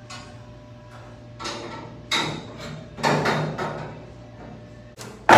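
Metal knocks and clanks from the steel-tube chassis of a NASCAR stock car being handled, about five separate knocks with short ringing tails, the loudest at the very end.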